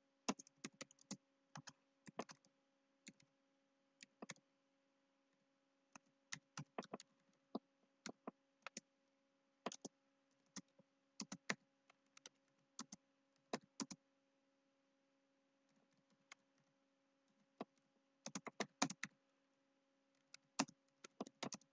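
Faint typing on a computer keyboard: irregular key clicks in short runs with pauses between, over a faint steady hum.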